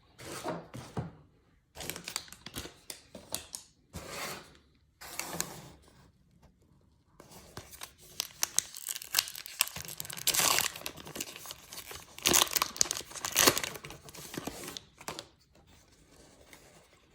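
A trading card pack wrapper being torn open and crinkled by hand, in short irregular rustles, denser and louder in the second half.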